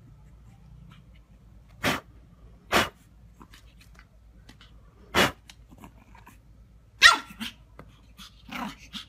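Pug puppy giving short, sharp barks: two about a second apart, a third a couple of seconds later, then a quick run of yips about seven seconds in and a few softer ones near the end.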